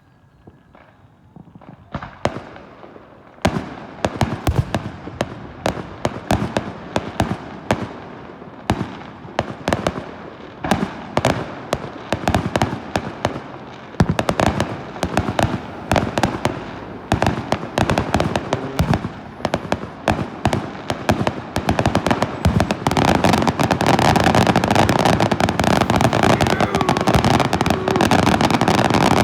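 Fireworks going off: a rapid run of sharp pops and bangs starting about two seconds in, growing denser until it becomes an almost continuous crackle over the last few seconds.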